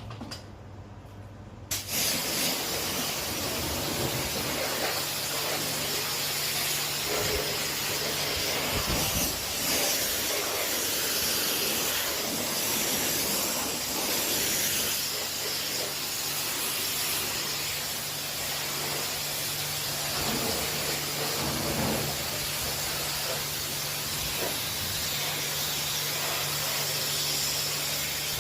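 A loud, steady hiss of spray that starts suddenly about two seconds in, with a low, steady hum beneath it.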